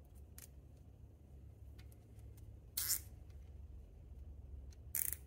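Nylon zip tie being pulled tight through its ratcheting head: two short zipping bursts, about three seconds in and just after five seconds, with faint clicks of handling between them over a low steady hum.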